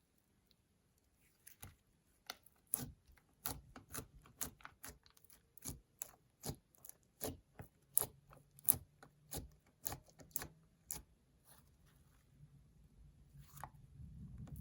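Slime being worked and pressed by hand, giving a run of sharp sticky clicks and pops at about two a second that thin out near the end.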